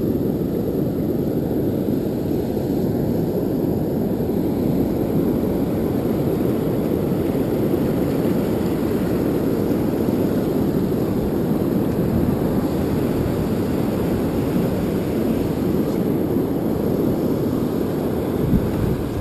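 Steady low rumble of rough surf breaking on the beach, muffled and mixed with wind on a body-mounted action camera's microphone. A brief knock sounds near the end.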